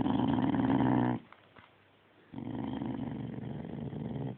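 A dog making two long, low, drawn-out 'talking' vocalisations. The first ends about a second in, and the second starts a little after two seconds.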